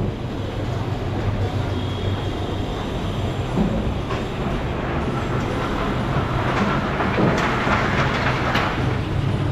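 A heavy engine or machine running steadily with a low hum, and rattling that builds up in the second half.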